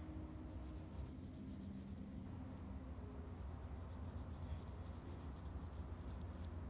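Cloth wipe damp with acetone rubbing back and forth over a bare Apple Watch Series 5 display, a faint quick scrubbing in two spells, cleaning off leftover adhesive and streaks from the removed glass. A low steady hum runs underneath.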